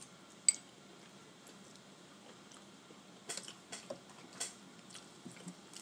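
Boiled crawfish shells cracking and being peeled between the fingers: one sharp snap about half a second in, then a run of small crackling clicks in the second half.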